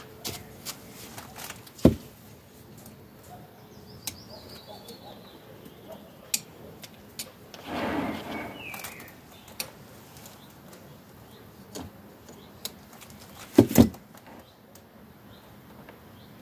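Bonsai scissors snipping and clicking while pruning a Chinese privet, a series of short sharp clicks with a louder one about two seconds in and a double click near fourteen seconds. A brief rustle of handling about eight seconds in, and birds chirp faintly in the background.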